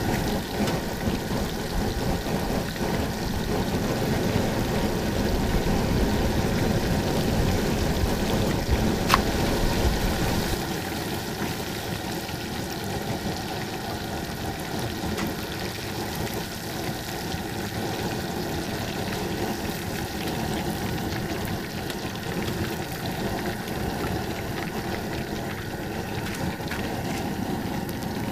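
Battered panfish fillets deep-frying in hot oil in a pot over a propane burner: a steady sizzle like rain. A low rumble underneath drops away about ten seconds in.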